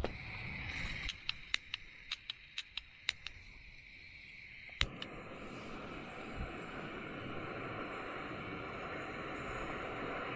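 Alpkit BruKit gas canister stove being lit: gas hissing, then a quick run of about eight piezo igniter clicks, a louder click a couple of seconds later as it catches, and the burner then running steadily.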